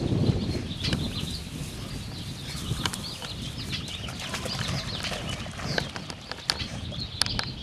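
Small birds chirping over and over, many short calls. Under them a dog rustles through tall grass and splashes as it wades into shallow water carrying a duck, with a low rush loudest in the first second and a few sharp clicks near the end.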